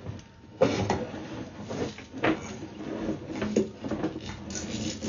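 Irregular knocks and clattering from a sewer inspection camera being pulled back through the drain line, its push cable being retracted; a sharp knock about half a second in is the loudest.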